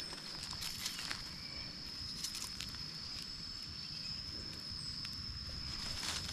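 A steady, high-pitched insect drone, with a few short scrapes and rustles of a homemade digging tool working dry soil and leaf litter.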